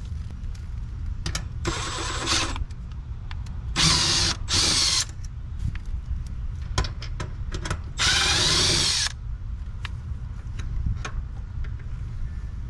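Cordless drill/driver running in four short bursts, the last and longest about eight seconds in, backing out the screws that hold an AC condenser's contactor, with small clicks and knocks in between.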